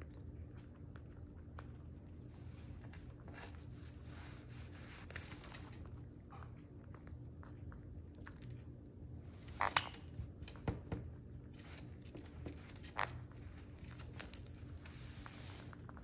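Sun conure cracking and husking sunflower seeds with its beak: scattered small cracks and clicks, with a few louder snaps past the middle.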